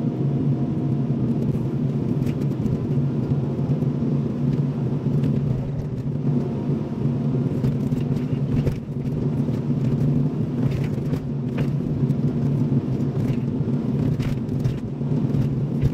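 Kobelco SK75SR compact excavator's diesel engine running steadily, with a few light knocks partway through.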